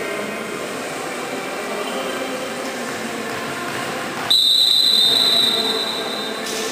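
Reverberant sports-hall background noise, then about four seconds in a volleyball referee's whistle blows one long, steady, shrill blast of about two seconds, the signal that authorises the next serve.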